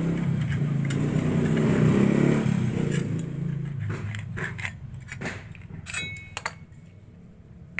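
A motor hums steadily, then fades out about three seconds in. Several sharp metallic clicks and taps of tools or fittings being handled follow.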